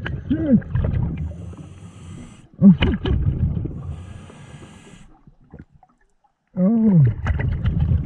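Scuba diver breathing through a regulator underwater: exhaled bubbles rumble, with muffled, wavering vocal sounds from the diver through the mouthpiece. A high hiss of inhaling through the regulator comes twice between exhalations, and there is a brief pause before the exhale rumble resumes near the end.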